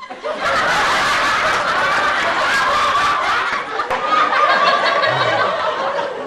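Sitcom laugh track: a studio audience laughing together, many voices overlapping, with a splice about four seconds in where one laugh clip gives way to the next.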